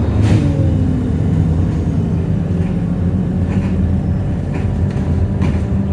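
Alexander Dennis Enviro200 bus engine running with a steady low drone, its pitch falling in the first moment as the revs drop, with a few faint rattles over it.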